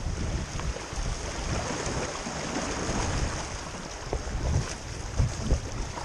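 Fast creek water rushing steadily around a solo open canoe running small rapids, with paddle strokes in the water. A few short low thumps come near the end.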